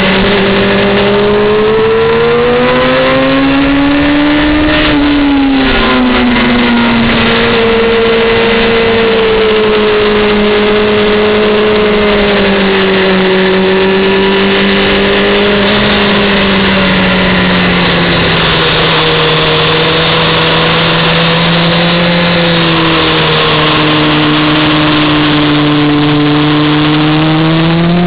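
Honda CBR600F4i's inline-four engine heard from the rider's seat at speed on a track, its pitch swelling and easing as the throttle opens and closes and climbing again near the end, with steady wind rush.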